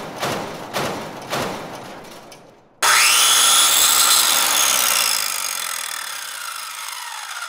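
Sound effects: a few sharp knocks about half a second apart, then a circular saw starting abruptly about three seconds in, its whine rising briefly and then slowly falling in pitch as it fades.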